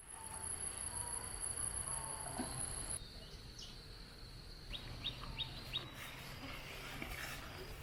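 Countryside ambience: insects trilling steadily, with a high trill that cuts off about three seconds in, and a bird chirping four times in quick succession a little past the middle.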